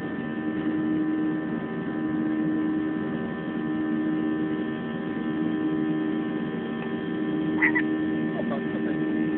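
Steady drone of a jet airliner heard inside the passenger cabin during the climb. The engines' even rushing noise carries a constant low hum with several fixed tones over it.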